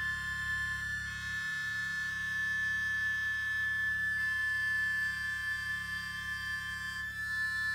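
Contemporary chamber music for accordion and ensemble: long sustained tones, with one strong high pitch held over a low drone. The low part thins about a second and a half in, and the upper texture shifts near the end.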